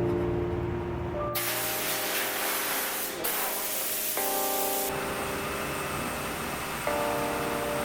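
Calm background piano music with held notes, overlaid from about a second and a half in by a steady hiss that cuts off suddenly about three and a half seconds later.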